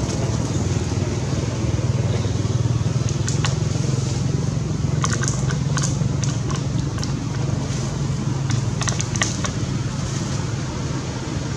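Thin plastic water bottle crinkling and cracking as a macaque grips and bites it, in scattered clusters of sharp crackles, over a steady low rumble.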